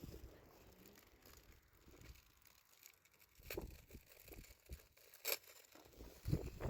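Faint rustling and handling noise, with two short sharp knocks about halfway through and again near the end.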